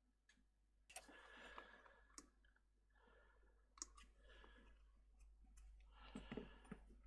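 Faint clicks and handling noises of small objects on a workbench: sharp clicks about a second in and near four seconds, with scraping and rustling between.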